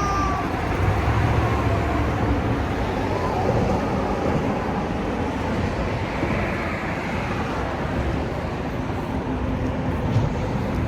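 Steady rumble of vehicle traffic and engines, an even noise with no single event standing out.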